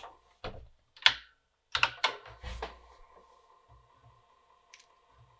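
A run of sharp clicks and knocks as a floppy disc goes into the Cumana drive and BBC Micro keys are pressed. About three seconds in, the drive starts with a steady hum and a few faint knocks as it tries to read the disc, which it has trouble reading.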